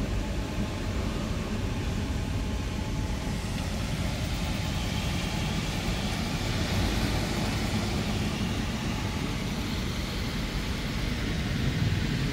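Automatic car wash machine running: a steady low rumble with a hiss above it that swells a little in the middle.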